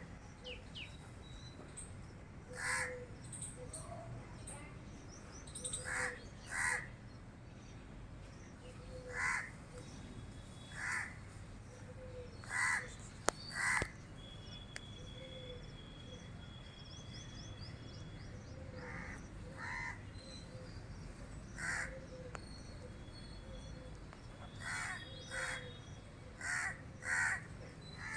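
Crows cawing, single caws and quick pairs every one to three seconds, over a steady low background rumble. A sharp click about thirteen seconds in.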